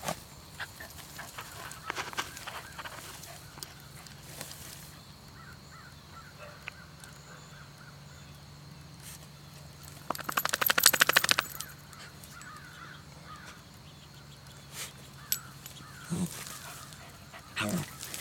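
Dachshund at work around groundhog holes: a fast run of short rasping sounds for about a second and a half in the middle, then a few short low noises from the dog near the end.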